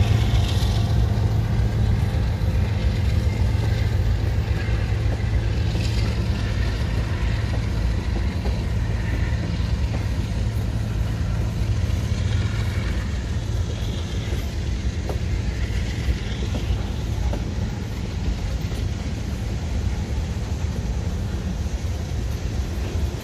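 Union Pacific freight train passing at close range: the last diesel locomotive goes by at the start, then covered hoppers and centerbeam flatcars rolling over the rails in a steady low rumble. A few brief higher-pitched wheel squeals come through now and then.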